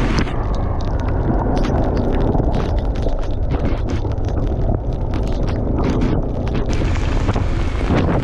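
Bajaj Dominar 400's single-cylinder engine running as the motorcycle rides along, with heavy wind rumble on the action camera's microphone. A scatter of short ticks runs through the middle.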